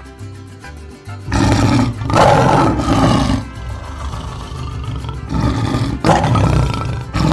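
A big cat roaring: a long, rough roar starting a little over a second in, followed by several shorter roars, over background music.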